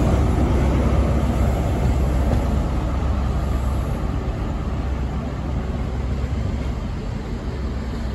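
Class 43 HST power car's diesel engine running under power as the test train pulls away, a deep steady rumble that slowly fades as it recedes.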